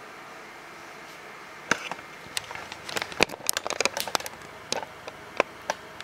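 Steady background hiss, then from just under two seconds in a run of irregular sharp clicks, knocks and rustles: handling noise as the camera is picked up and moved.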